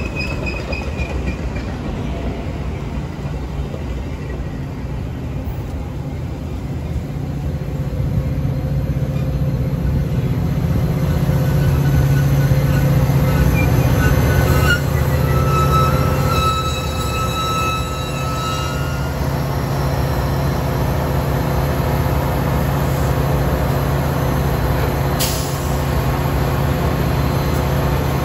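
A Metra commuter train of bilevel coaches rolling past, with thin wheel squeals for a few seconds near the middle. The pushing EMD F40PH-series diesel locomotive at the rear runs with a steady low hum that grows louder as it comes alongside, and there is one sharp click near the end.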